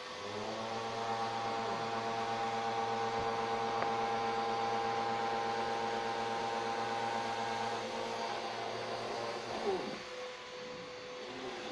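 Vacuum cleaner running, a steady motor whine whose pitch slides briefly near the start and again about eight to ten seconds in, with a short bump near the end.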